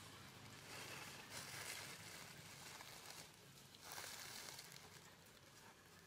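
Near silence with faint, soft rustling.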